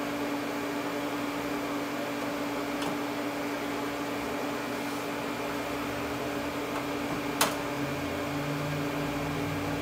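Steady electrical hum of idle welding-shop equipment, with no arc struck. A single sharp click comes about seven and a half seconds in, and a lower motor hum joins shortly after.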